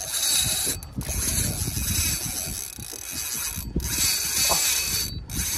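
Spinning reel's drag clicking fast and continuously, with a few brief breaks, as a hooked jack crevalle pulls line off on a long run.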